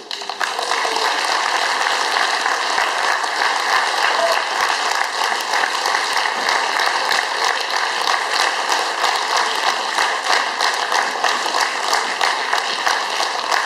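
Audience applauding, many hands clapping together; it builds up within the first half-second and then holds steady.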